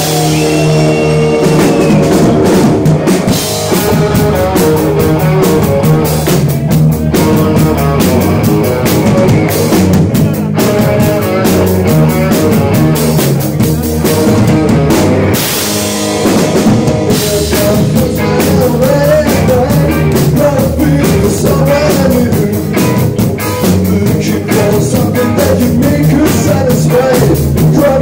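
Rock band playing loud and live: electric guitars, bass guitar and drum kit.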